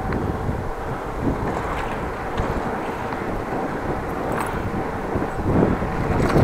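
Wind buffeting an action camera's microphone on a moving bicycle: a steady, dense rushing rumble with a few light clicks.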